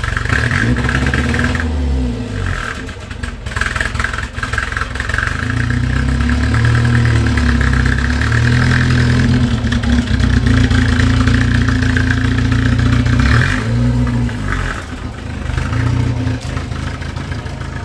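1967 Volvo 122S engine running as the car manoeuvres and pulls away, the revs rising and falling unevenly, then fading near the end as it leaves.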